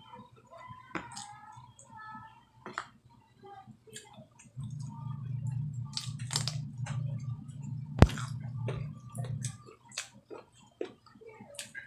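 Close-up eating sounds: chewing and wet mouth clicks as a person eats chicken adobo. A low hum runs underneath through the middle, and a single sharp knock about eight seconds in is the loudest sound.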